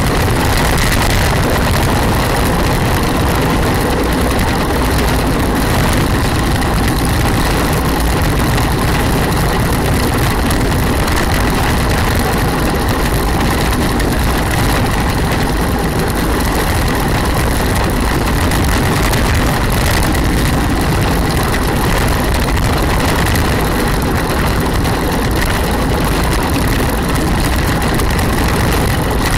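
Steady, loud rush of wind on the microphone and rumble of wheels rolling on asphalt from an engineless gravity racer coasting downhill at speed, with a faint steady high whine.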